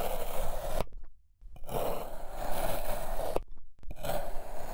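A knife slicing through a block of blue kinetic sand mixed with Mad Mattr around a white kinetic sand core, giving a grainy scrape in separate strokes: one ending about a second in, a longer one in the middle, and another starting near the end.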